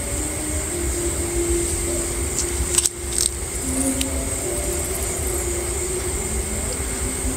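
Steady outdoor night ambience: a low rumble under a constant high-pitched insect drone, with one sharp click a little under three seconds in.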